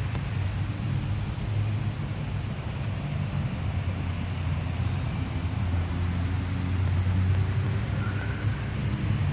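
Steady low rumble of city road traffic, a continuous engine hum from vehicles that grows a little stronger in the second half.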